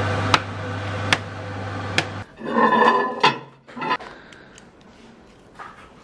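Three sharp knife chops on a cutting board, about one a second, over a steady low hum that cuts off a little after two seconds. A louder clatter follows, then a few faint knocks.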